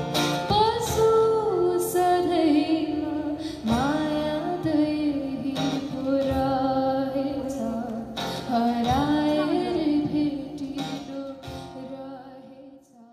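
Background music: a song with a sung melody, fading out near the end.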